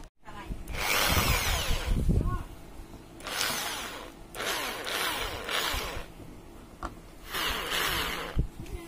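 Cheston electric drill run in several short bursts, its motor spinning up and winding down each time the trigger is squeezed and let go.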